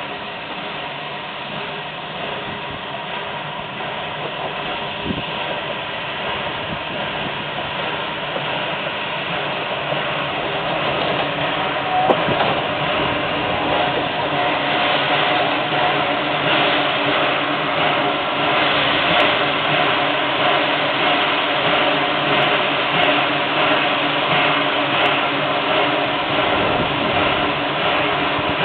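ALCO 2-8-0 Consolidation steam locomotive pulling its passenger train in slowly, its running noise growing steadily louder as it comes closer. A single sharp click about twelve seconds in.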